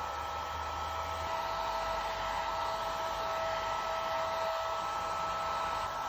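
Hair dryer blowing steadily: an even hiss with a steady whine.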